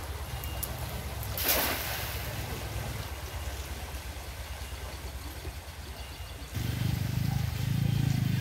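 A motor engine running steadily, getting louder about six and a half seconds in, with a short hissing splash about a second and a half in as a cast net lands on the water.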